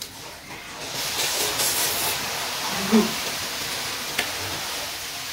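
Instant cup noodles being slurped and eaten with chopsticks: a long hissing slurp starting about a second in, with a short click a little after four seconds.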